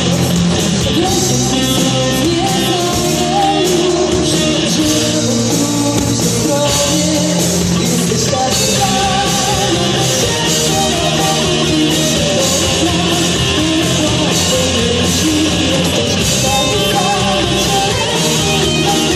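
Live rock band playing: electric guitars, electric bass and drums, with a woman singing.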